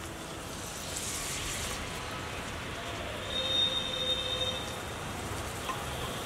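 Food sizzling in a pan, a steady hiss, with a brief pitched sound about halfway through.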